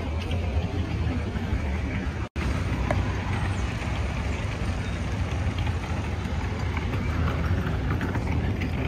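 City street traffic: a steady low rumble of passing vehicles, which drops out for an instant a little over two seconds in.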